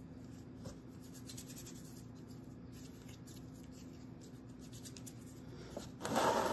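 Faint rustling of hands handling soft clay, then a brief louder rub about six seconds in as the hands press against the clay coil vessel.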